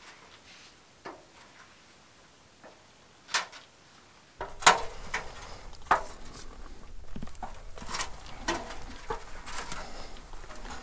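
Boots and hands knocking on the rungs of a metal ladder as a climber goes up it: a few faint, scattered knocks for about four seconds, then close, frequent clanks and scuffs against the ladder and the rock.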